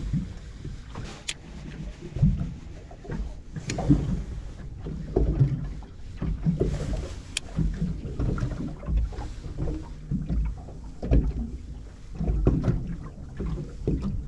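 Waves slapping against the hull of a small drifting fishing boat: irregular low thuds every second or so, over a steady low rumble of wind and water.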